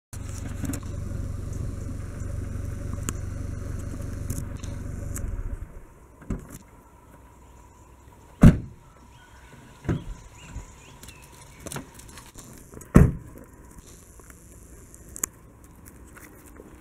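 A Peugeot saloon car's engine idling with a steady low rumble, switched off about six seconds in. Then a car door is handled: two loud sharp thumps, a few seconds apart, with lighter clicks and knocks between them.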